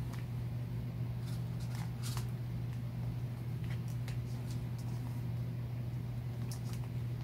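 Steady low hum, with a few faint, short clicks and rustles of a plastic Mini Brands capsule ball and small toy pieces being handled.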